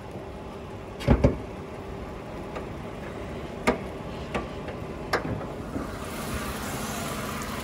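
Sharp clicks and knocks of a car hood and its latch being worked, the loudest a quick pair about a second in and lighter ones later, over a steady background hum that grows louder near the end.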